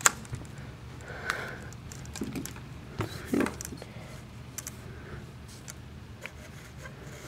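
Light, scattered clicks and taps of plastic Lego pieces being handled and set down on a tabletop.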